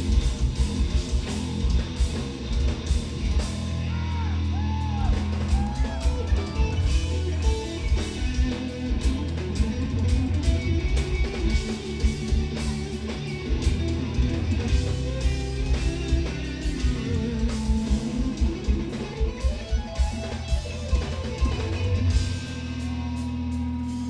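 Live instrumental progressive metal: two electric eight-string guitars and a drum kit, with gliding, pitch-bending guitar lines over dense drumming. A chord is held over the last couple of seconds.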